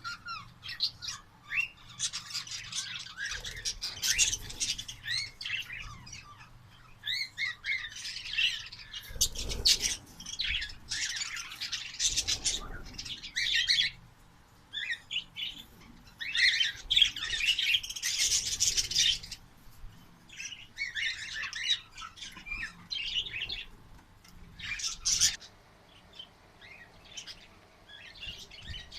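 Pet birds chirping and chattering: many short, shrill calls overlapping in loud spells with quieter gaps between them.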